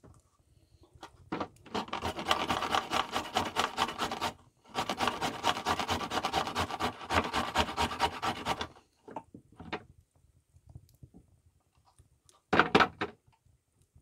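A carrot being grated on a metal box grater against a wooden cutting board: two long runs of rapid rasping strokes with a brief pause between. A few light taps follow, and there is a short, louder scrape near the end.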